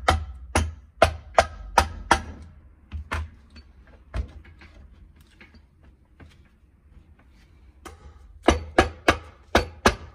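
Rubber mallet tapping the aluminium crankcase half of a Shineray 250 cc ATV engine down onto the other half as the case is closed: a quick run of sharp knocks, then a few light clicks and knocks of the case being handled, then another quick run of knocks near the end.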